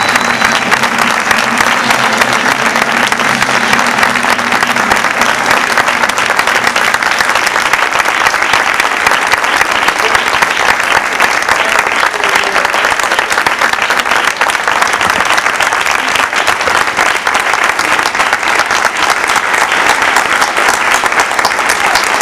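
Audience applauding: a dense, steady clatter of many hands clapping that keeps up without a break.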